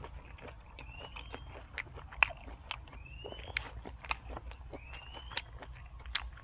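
Close-up chewing with sharp, crisp crunching bites, several a second at times. A faint rising whistle repeats about every two seconds behind it.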